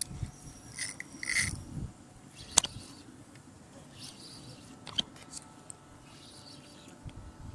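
Close handling noise from a spinning rod and reel: rustling scrapes in the first couple of seconds, then a sharp click about two and a half seconds in and a smaller one a couple of seconds later.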